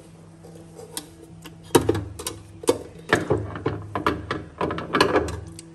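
Clicks and knocks of a bread maker and its pan being handled and set in place: a few separate clicks, then a quick run of clatter in the second half.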